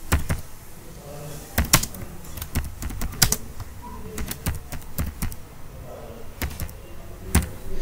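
Typing on a computer keyboard: a run of irregular key clicks, some struck harder than others.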